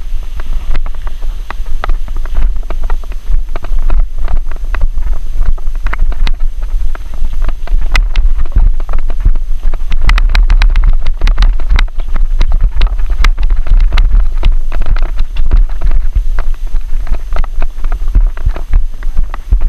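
Wind buffeting the microphone of an action camera on a moving mountain bike as a low rumble. Over it, the bike rattles and clicks as it rides over a rough dirt trail, most densely in the middle.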